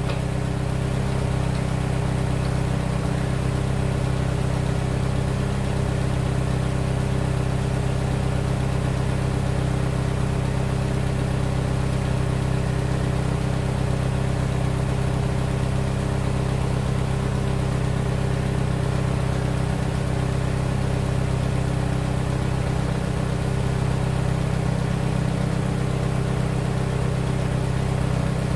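Ford GPW jeep's four-cylinder flathead engine idling at a steady, even speed.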